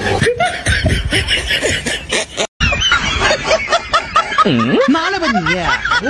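Snickering laughter, a fast run of short rising-and-falling notes through the second half, with bigger pitch swoops near the end.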